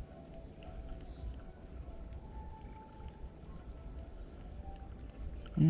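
Insects trilling steadily in a high, even drone over a low rumble. A short vocal sound cuts in right at the end.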